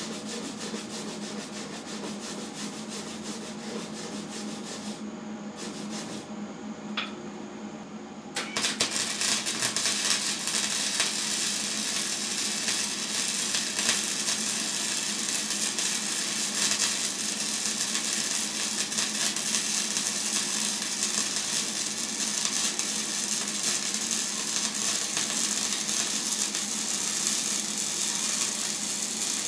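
Hobart Handler 140 MIG welder running flux-core wire: the arc starts about eight seconds in and crackles steadily from then on. Before that, quieter scrubbing of a wire brush on the steel deck.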